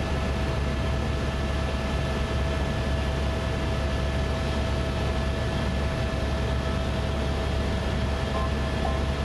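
Helicopter in cruising flight heard from inside the cabin: a steady drone of rotor and engine with a constant high whine over it.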